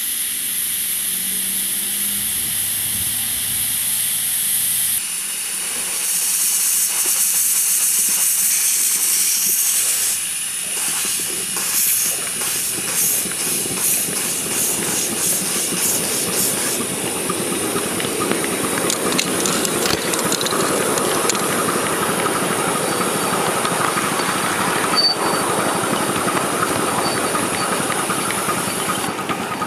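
Miniature live-steam tank locomotive hissing steam, with steam blowing from around its cylinders. A run of short sharp knocks comes in the middle, and a rougher rushing hiss takes over in the second half.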